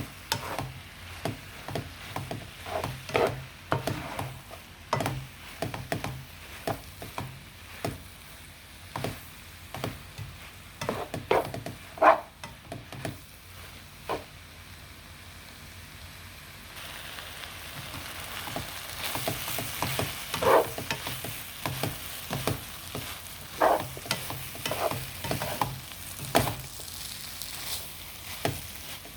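Glass noodles being stir-fried in a pan: irregular scrapes and knocks of a utensil against the pan over a steady sizzle. The sizzle grows louder about two-thirds of the way through.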